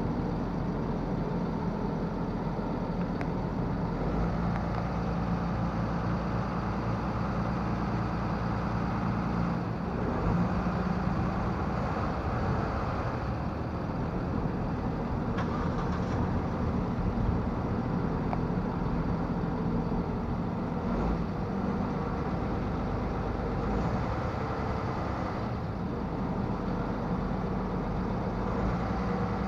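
An engine running steadily with a low hum, its deepest drone changing about 4 and 10 seconds in.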